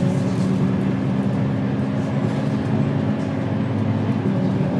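Bus engine running steadily, a low drone with a few constant hum tones.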